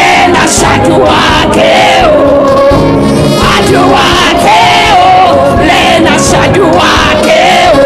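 A woman leading a gospel praise song through a microphone. The congregation sings along over live music, a continuous, loud sung melody with no break.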